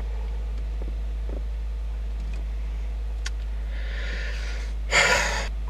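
Steady low hum in a car cabin. Near the end a man draws a breath and lets out a short, loud sigh.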